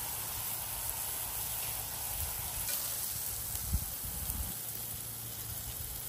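Beef smash burger patties sizzling on a hot stainless steel griddle, a steady hiss, with a couple of soft low knocks around the middle as a spatula lifts and stacks one patty onto the other.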